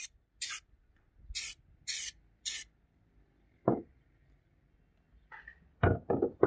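Aerosol can of anti-rust lubricant spraying in about five short hisses over the first three seconds. A knock follows, then a few quick knocks near the end as the metal shotgun parts are handled on a wooden board.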